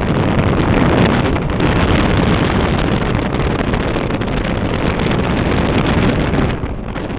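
Wind buffeting the microphone: a loud, steady rush heavy in the low end that eases near the end.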